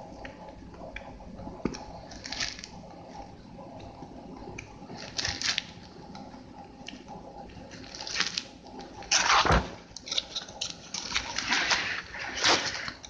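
Pages of a thick paperback manual being turned and riffled by hand: paper rustling and flapping in irregular bursts, sparse at first and busier and louder in the second half.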